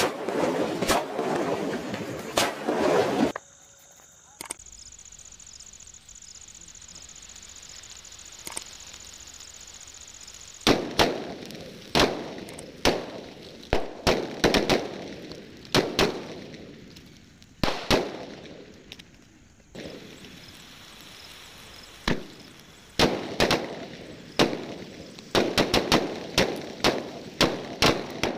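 A chain of firecrackers going off: dense crackling at first, then after a lull of several seconds, single loud bangs about a second apart, each fading away, coming quicker and denser near the end.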